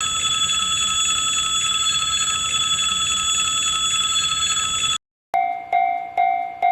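Train sound effect: a steady whine of several held high tones over a low rumble, cutting off after about five seconds. After a short gap, a railroad crossing bell starts ringing in a steady "kan-kan", a little over two strikes a second.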